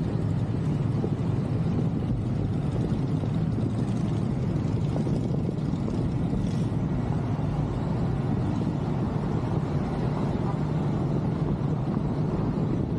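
Steady low rumble of a motorcycle in motion, heard from the pillion seat: the engine running at an even pace, mixed with wind on the microphone.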